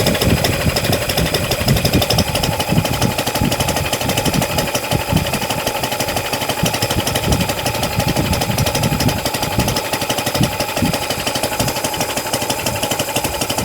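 Small homemade four-stroke engine converted from a refrigerator compressor, running on LPG with a rapid, steady chatter of firing strokes. About two seconds in its pitch steps up, as if it picks up speed.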